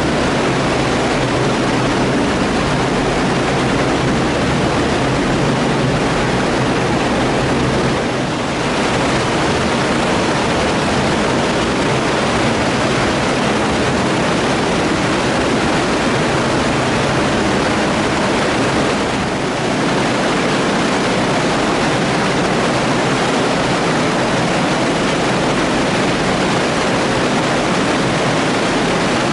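Storm runoff rushing fast along a storm sewer's tiled channel inside a concrete flow-dividing chamber: a loud, steady rush of water, dipping slightly twice, about eight and nineteen seconds in.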